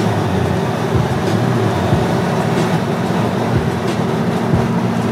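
Steady in-cabin drone of a 2008 Hyundai Tiburon cruising at highway speed: a low engine and exhaust hum from its Magnaflow cat-back exhaust over a constant rush of tyre and wind noise.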